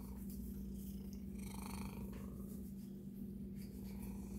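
Santoku kitchen knife cutting through beef short ribs, faint, over a steady low hum.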